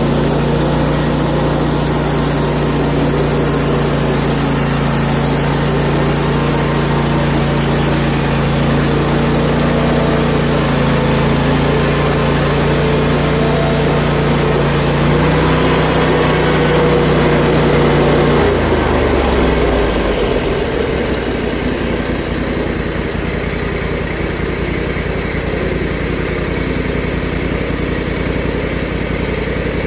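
Gas engine of a portable bandsaw mill running steadily at speed while the blade cuts through a log. About 18 seconds in the engine speed drops and it runs on at a slower, lower pitch.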